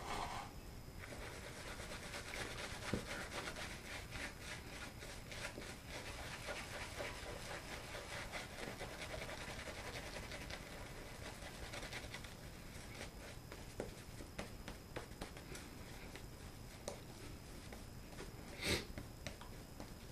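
Badger shaving brush scrubbing lather on the face, a rapid wet brushing that runs for about the first twelve seconds. After that come fainter, sparser scratches and a single sharp knock near the end.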